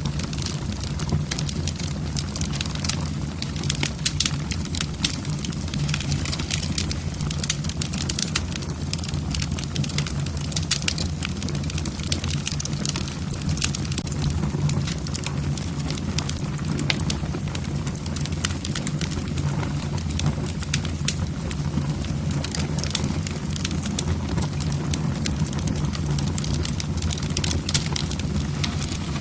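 Wood fire in a fireplace burning steadily, logs crackling with many small irregular pops over a low rumble of flame.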